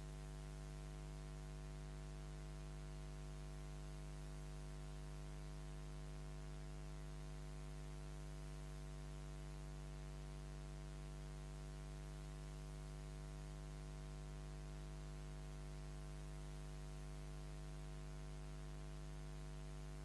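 Steady low electrical mains hum with a buzzy ladder of higher overtones over a faint hiss, the kind picked up in a sound system's wiring. No other sound comes through.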